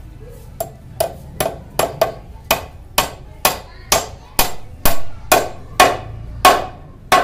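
A hammer striking a wooden door-frame member, knocking the frame's joint together: about fifteen sharp knocks, roughly two a second.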